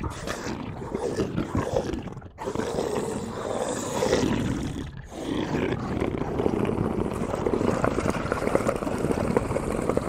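A drawn-out roaring growl played as a sound effect, in long rough stretches broken by brief pauses about two and five seconds in.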